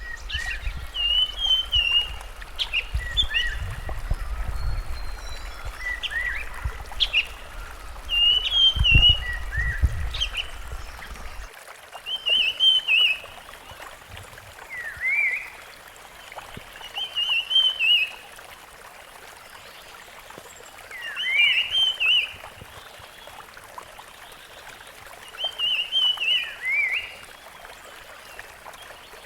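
Rusty-fronted barwing singing short, warbling phrases that repeat every few seconds, with extra sharp chirps in the first ten seconds, over a steady background hiss. A low rumble runs under the first eleven seconds and cuts off abruptly.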